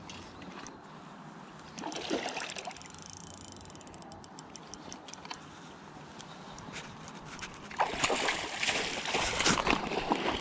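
Water splashing and sloshing at the surface as a hooked trout is brought to the net: a short splash about two seconds in, then heavier, choppier splashing from about eight seconds on.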